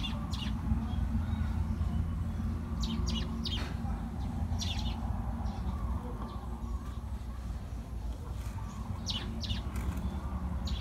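Birds chirping outdoors: short, quick chirps in small clusters a few times, over a steady low rumble.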